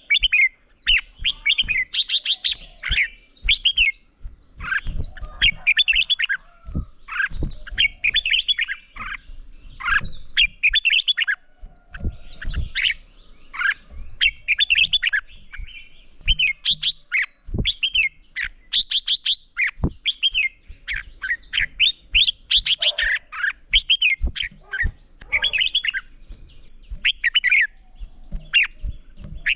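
Red-whiskered bulbuls in a duelling song bout, singing rapid, overlapping whistled phrases one after another, with sharp clicks mixed in.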